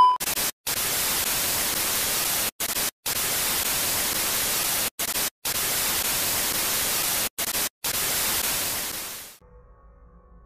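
Static sound effect: a steady white-noise hiss broken by several sudden, brief dropouts, fading out about nine seconds in.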